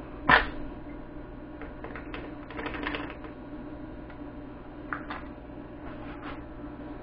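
Sharp knock about a third of a second in, then scattered light clicks and taps of tools and cell caps handled on top of a forklift battery, over a steady low hum.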